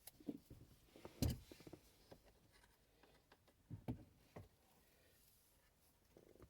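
Faint scattered clicks and knocks of hand tools and small plastic parts being handled, the loudest a little over a second in and another at about four seconds.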